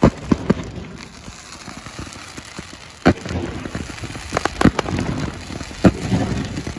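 Fireworks bursting overhead: sharp bangs at the start, about three seconds in, a quick cluster around four and a half seconds and another near six seconds, over a steady fizzing crackle.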